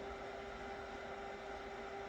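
Small plug-in heater/cooler unit's fan running steadily: air noise with a steady hum over it.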